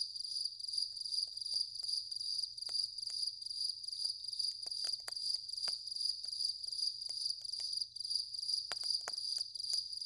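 Crickets chirping in a steady, high pulsing trill, about three pulses a second, with scattered soft clicks.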